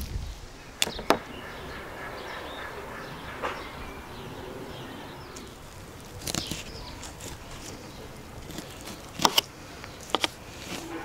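Kitchen knife cutting through raw lamb and knocking on a wooden cutting board: scattered sharp taps, singly and in close pairs, with quiet stretches between.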